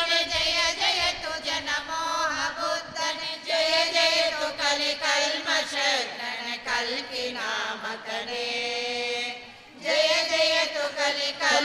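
A congregation of women and men singing a Kannada devotional song to Venkatesha together, in the verse hailing Vishnu's avatars. Near the end the voices hold one long note, break off briefly, and then sing on.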